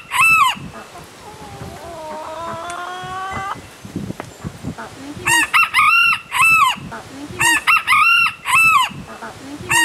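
Rooster crowing several times, each crow a run of short rising-and-falling notes. The tail of one crow is heard near the start, then two full crows come in the second half, and another begins right at the end.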